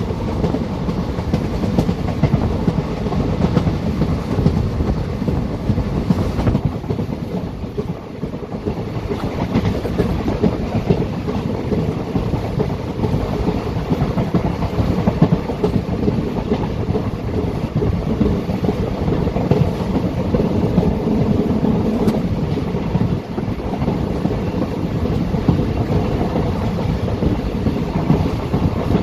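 Indian Railways passenger train running along the track: a steady rumble of the moving coaches with many wheel clicks over the rails.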